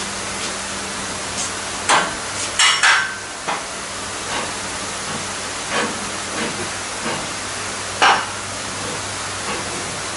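Scattered metal-on-metal clanks and knocks, about six, from an engine slung on a shop engine hoist being worked down into a car frame, the loudest a cluster about two to three seconds in and another near eight seconds, over a steady background hiss.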